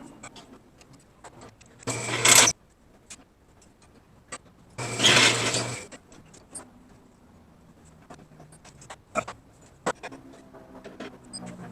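Welding on steel: two short welding bursts, like tack welds, the second about twice as long as the first, with light clicks and clinks of metal being handled between them.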